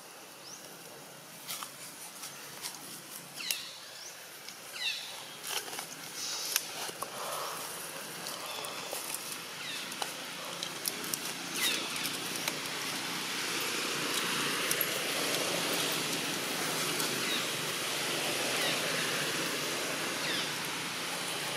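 A few sharp clicks and short falling high chirps, then the rushing noise of passing road traffic, which builds up from about halfway and stays steady.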